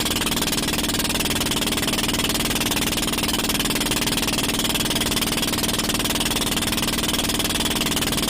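Engine of a motorized bangka (outrigger boat) running steadily and loudly, with a constant hum under a dense mechanical clatter.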